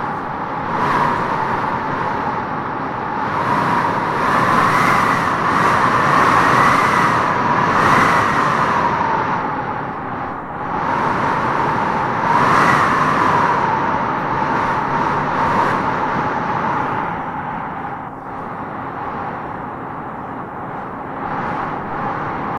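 Wind howling and gusting through trees: a steady rush with a whistling howl that rises and falls in pitch, swelling in gusts that are strongest about a third of the way in and again just past halfway.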